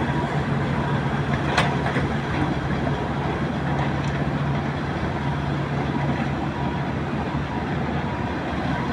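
Steady drone of heavy earthmoving machinery's diesel engines, with a crawler bulldozer moving close by. There is one sharp click about a second and a half in.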